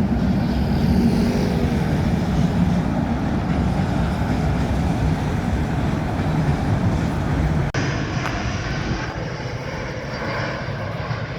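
A heavy engine running with a steady low rumble, with an abrupt cut about eight seconds in to a slightly quieter rumble.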